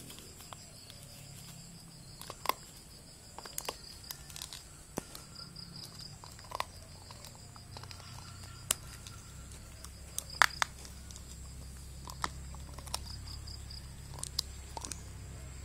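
A dog gnawing on a bone, giving irregular sharp cracks and clicks as its teeth work the bone. Insects chirp steadily behind it.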